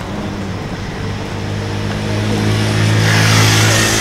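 A road vehicle passing close by: a low engine hum and tyre hiss that swell to a peak about three and a half seconds in, then start to fade.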